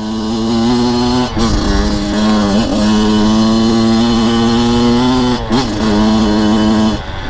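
Freshly rebuilt Kawasaki KX100's single-cylinder two-stroke engine revving high under load as the bike is ridden, held at a steady pitch with brief drops in the throttle about a second and a half in, near three seconds and again past five seconds. This is a hard break-in on the new piston and rings.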